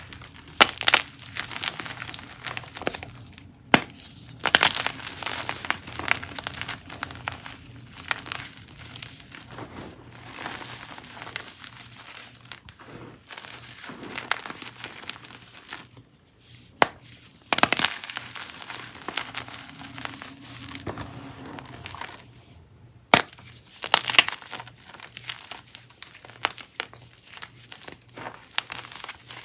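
Gym chalk chunks and blocks being crushed: soft crumbling crunches in uneven bursts, with a few sharp snaps as pieces break.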